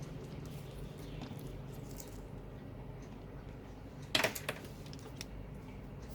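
Hands handling a power supply's insulated wires: faint rustling and small clicks, with a short cluster of sharper clicks about four seconds in, over a steady low hum.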